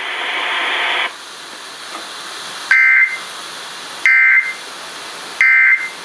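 Emergency Alert System end-of-message data bursts from an FM radio broadcast, played through a portable boombox speaker: three short, loud two-tone digital screeches about 1.3 s apart, marking the end of the tornado watch alert. A hiss is heard before them and cuts off about a second in.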